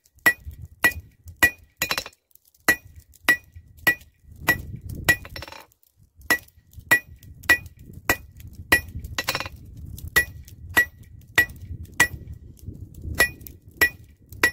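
Hand hammer striking hot 3/8-inch rebar on a steel anvil, drawing out a taper and squaring it. The blows come in a steady rhythm a little under two a second, each with a bright ring, with a short pause about five seconds in.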